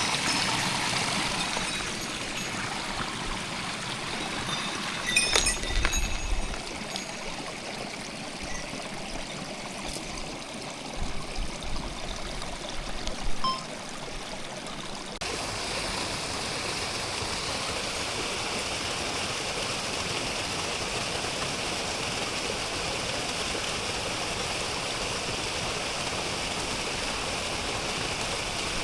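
Mountain stream water rushing over rocks, a steady splashing flow. About halfway through it changes abruptly to a brighter, hissier rush, and a few dull bumps come in the first half.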